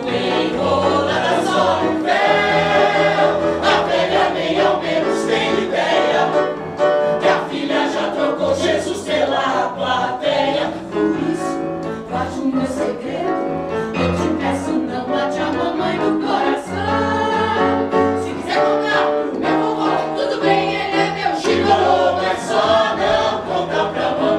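A stage musical's cast singing a number together in chorus, with musical accompaniment carrying steady low notes beneath the voices.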